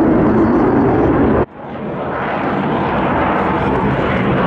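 Jet engine noise from a fighter jet in flight. About a second and a half in, it cuts off suddenly at an edit. The noise of a MiG-35 fighter then fades back in and builds to a steady level.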